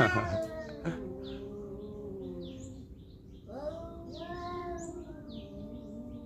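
Two stray cats in a standoff, yowling long and wavering at each other as a threat display rather than fighting; one drawn-out yowl fades out about three seconds in and another begins half a second later. Small birds chirp in the background.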